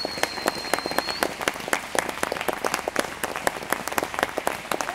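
Audience applauding, many hands clapping irregularly. A single high, steady whistle stops about a second in.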